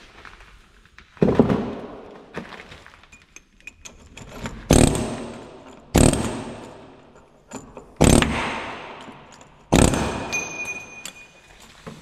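Oxy-acetylene cutting torch burning off rusted truck-frame bolts: a steady hiss broken by five sudden loud bursts that each die away over about a second, every one to two seconds.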